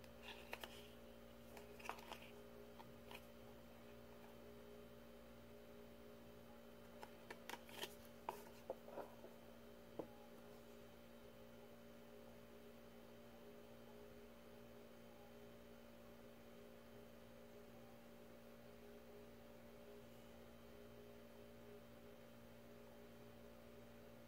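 Faint steady electrical hum. Over it come small clicks and rustles of a cardboard jewelry box and its paper booklet being handled: a few in the first three seconds, and another cluster between about seven and ten seconds in.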